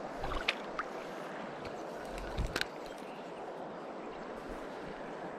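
Shallow river rapids rushing steadily, with a few short sharp clicks about half a second in and again around two and a half seconds in.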